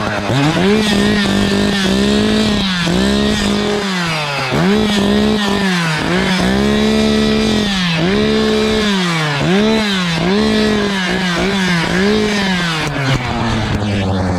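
Echo two-stroke chainsaw revved over and over, the engine climbing to full speed, holding briefly and dropping back, then falling toward idle near the end.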